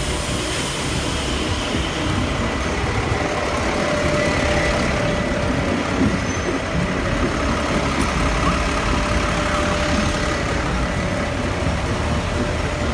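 Steady roadside traffic noise, with a double-decker bus's engine running close by at the kerb.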